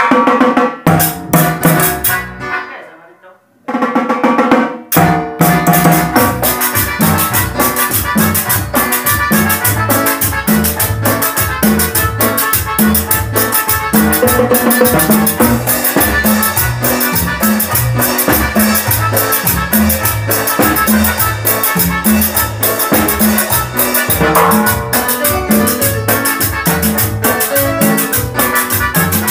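Band playing an instrumental intro: a few drum-kit hits and a brief break about three seconds in, then a steady, evenly driving dance groove of drums, percussion and bass.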